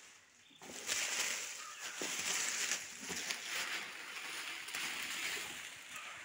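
Shredded foil-and-paper packing fill rustling and crinkling as it is scooped by hand out of a cardboard box. The uneven rustling starts about half a second in.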